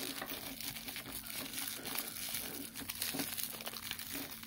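Clear plastic packaging crinkling and crackling as it is handled and pulled apart by hand, a steady run of small crackles and rustles.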